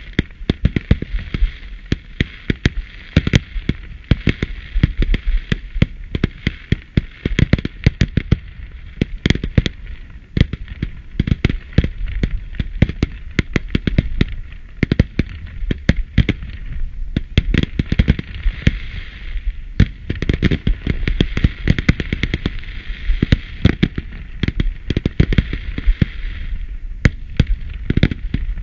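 Aerial fireworks bursting in a rapid, continuous barrage of bangs and pops, with a crackling hiss behind them that thins out briefly a few times.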